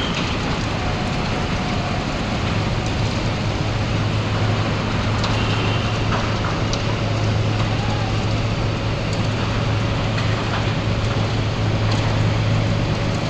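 A large mobile crane's diesel engine running steadily, with a constant low hum that strengthens about four seconds in, under a hiss of machinery noise.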